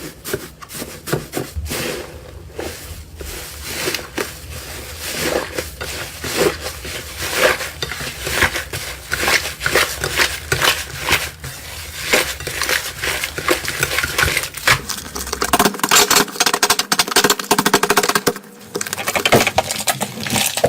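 Slime being squished and kneaded by hand: a steady stream of wet clicks and crackles that gets denser and louder in the last few seconds.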